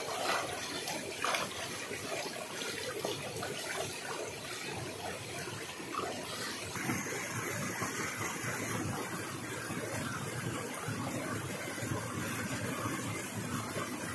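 People splashing and wading in a rock pool: water splashing and churning steadily.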